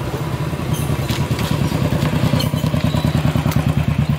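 Motorcycle engine running at a steady speed while riding, a fast, even low beat.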